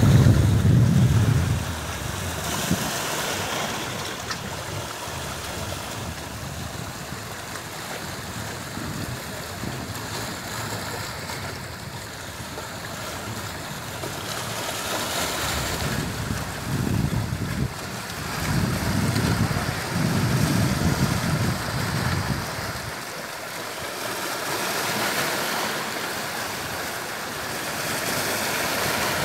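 Sea waves washing onto the shore in a continuous hiss that swells and fades every few seconds. Low rumbles of wind on the microphone come near the start and again for several seconds past the middle.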